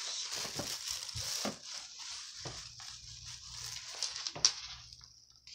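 Rustling and knocking of a phone being handled and carried while walking, with a sharp click about four and a half seconds in.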